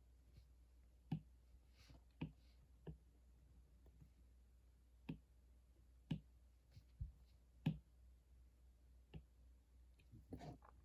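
Scattered light clicks and taps, about eight in ten seconds at uneven spacing, over a faint steady low hum in a quiet small room.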